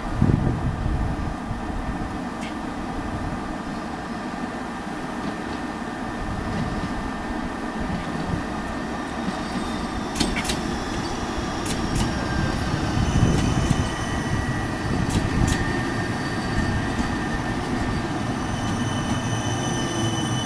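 T4 tram-train (Siemens Avanto) approaching on the rails and running past close by, its rumble swelling in the second half. A few sharp clicks come around the middle, and thin high-pitched squealing tones rise in as it draws near.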